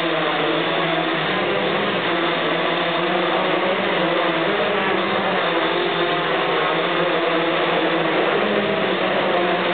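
Hexacopter's six electric motors and propellers, mounted at a 40-degree tilt, hovering: a steady buzzing whir whose pitch drifts slightly up and down.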